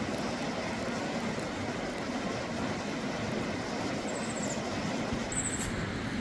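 Steady rushing noise of running water and rain, with two short high chirps about four and five and a half seconds in.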